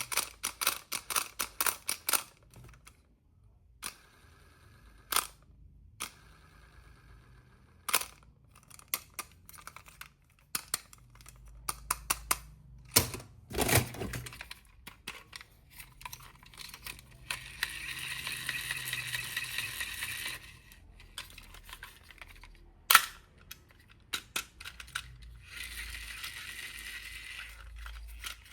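Hands handling small plastic toy parts and packaging. Sharp clicks and taps come in a quick run at the start and again in a louder cluster about halfway through, with two stretches of steady rustling a few seconds each in the second half.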